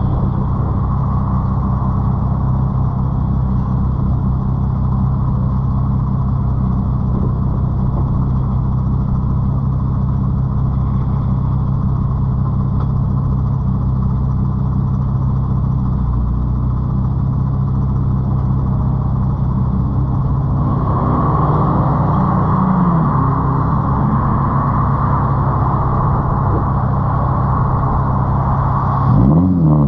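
Straight-piped Nissan 350Z's 3.5-litre VQ35 V6 exhaust, heard right at the tailpipes, running at steady revs with a deep, even note. Near the end the revs climb sharply as the car accelerates.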